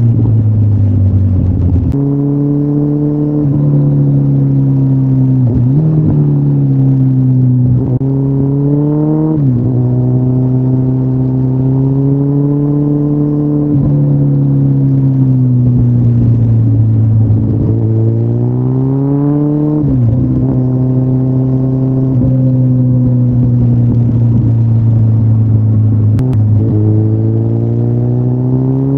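2013 Kawasaki Ninja ZX-14R's inline-four engine through Yoshimura mufflers, under way: the exhaust note falls, steps up about two seconds in, climbs under acceleration and drops sharply at upshifts about nine and twenty seconds in, then climbs again near the end.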